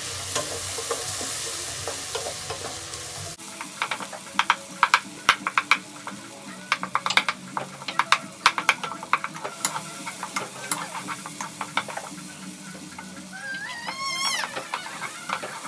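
Wooden spatula stirring onion, garlic and tomato frying in a nonstick pot: a steady sizzle, with many quick clacks and scrapes of the spatula against the pot through the middle. A brief high wavering sound comes near the end.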